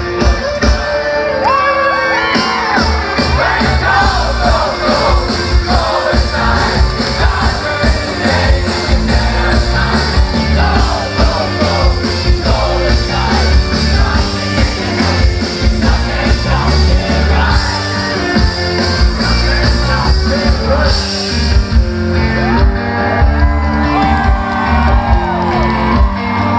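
Live rock band playing loudly: electric guitars, bass and drums through the PA, with singing and shouts over the top.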